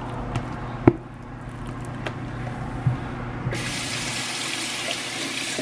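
A few light knocks and clicks, then a kitchen water tap is turned on about three and a half seconds in and runs steadily.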